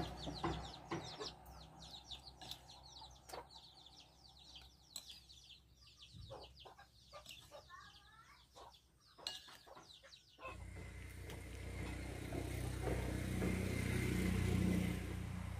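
A metal spoon clicking against a ceramic bowl as eggs are cracked and beaten, with chickens clucking. About ten and a half seconds in it switches to a louder, steady outdoor rumble and hiss.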